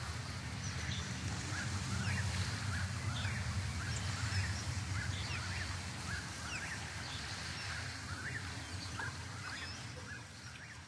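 Lakeside nature ambience from a model-railroad background sound-effect track: many short, quick chirping animal calls over a steady low rumble, fading out near the end.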